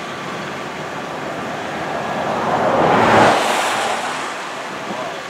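A vehicle passing on the road: tyre and engine noise that swells to a peak about three seconds in and then fades away, over a steady background hiss.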